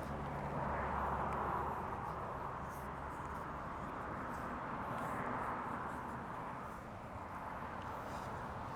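Soft rubbing and rustling of a metal detector's coil cable being wound around the shaft by hand, swelling and easing with the winding.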